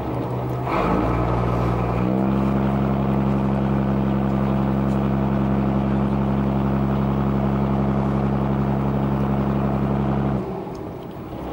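Boat engine running, speeding up in two steps in the first two seconds, holding a steady pitch, then throttling back near the end.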